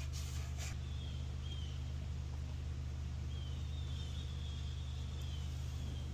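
A faint, steady low hum, with a few short, high chirps from birds scattered through it.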